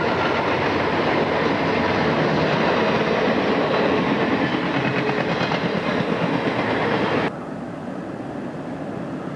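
Conrail diesel locomotive passing close at speed, its engine and wheels on the rails making a loud, dense rush. The sound cuts off suddenly about seven seconds in, leaving a fainter, steady rumble.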